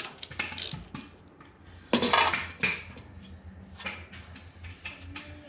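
Metal hand tools clinking and clattering against each other and the engine, with one loud metallic clatter about two seconds in and lighter clicks after it.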